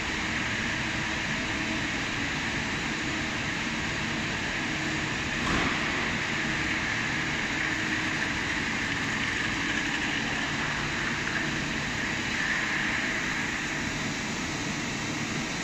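Steady machine-shop noise from running CNC machining centers: an even hiss over a low hum, with a single knock about five and a half seconds in.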